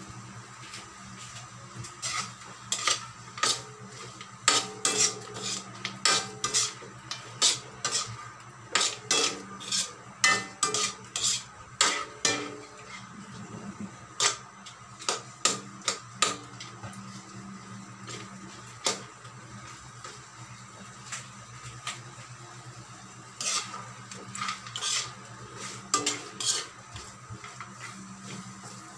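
Metal spoon scraping and clinking against a metal wok as chicken wings in thick oyster-sauce adobo are stirred, in irregular clusters of clinks with a lull of a few seconds past the middle.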